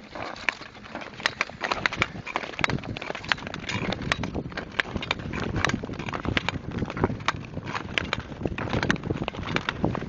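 Ice skate blades on rough, scratched ice: irregular sharp clicks and scrapes as the skaters stride and push off, a few each second, over a continuous gliding hiss.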